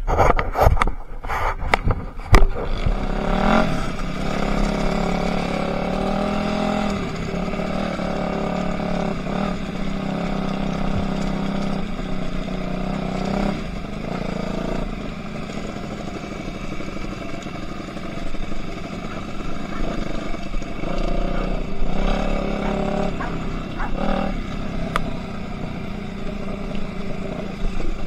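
A few sharp knocks, then an enduro motorcycle engine comes in about three and a half seconds in. It keeps running at a steady pitch that shifts a few times.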